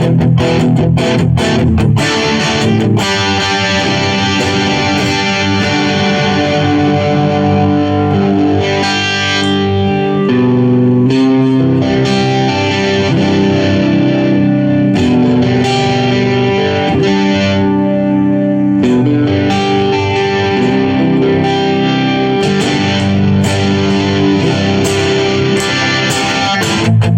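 Aiersi TL10 Telecaster-style electric guitar played through effects with some distortion. Strummed chords at the start and again near the end, with sustained, ringing chords and notes in between.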